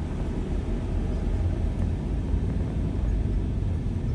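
Car moving off, its engine and tyres making a steady low rumble that grows a little louder in the first second.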